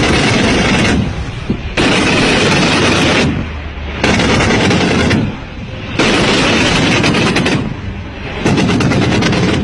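Automatic gunfire in long, rapid bursts: about five bursts of one to one and a half seconds each, with short pauses between them.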